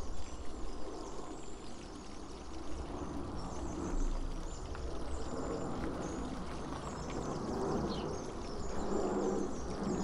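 Backyard ambience: scattered bird chirps over a steady background hiss and low hum, with the glossy pages of a magazine being handled and turned.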